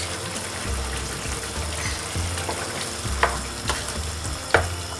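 Potato curry with double cream simmering in a pan and being stirred with a wooden spoon, with three sharp knocks of the spoon against the pan in the second half.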